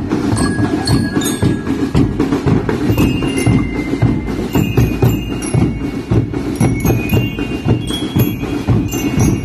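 Marching band playing: bass drums beat a steady rhythm while bell lyres pick out a high, ringing melody over them.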